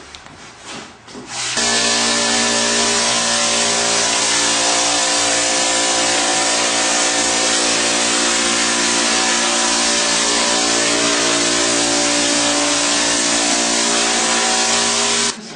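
Goldblatt drywall texture hopper gun spraying knockdown mud on compressed air: a loud, steady hiss with a steady hum of tones in it. It starts abruptly about a second and a half in and cuts off just before the end, as the trigger is pulled and released.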